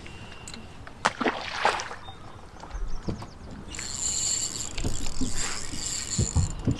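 Sounds of a small fishing boat on the water: water sloshing at the hull with a few knocks and clicks in the first half. From about four seconds in, a steady high-pitched buzz sets in and holds.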